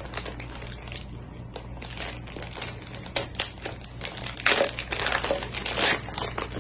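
Plastic packaging crinkling and rustling in the hands as it is pulled open and a small camera bag is taken out, in irregular bursts that are loudest in the second half.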